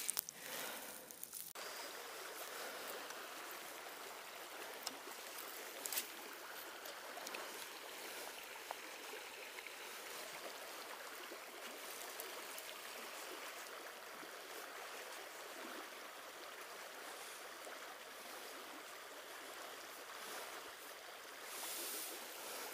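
Steady rush of a small river's flowing water, with a few faint clicks.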